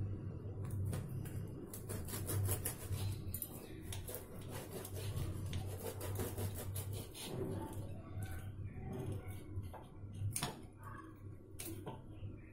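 A knife sawing through the crust of a homemade baked loaf of bread, in irregular rasping strokes with a few sharper clicks near the end.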